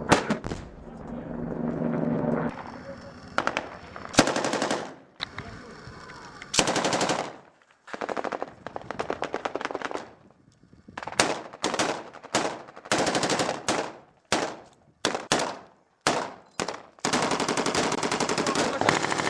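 Machine-gun fire in repeated bursts, some short and some a second or so long, with brief pauses between them and a long unbroken burst in the last couple of seconds.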